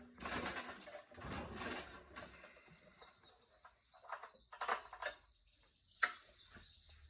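Hand tools working on bolts: a socket ratchet clicking in two quick runs of about a second each, then a few sharp metal clicks and knocks.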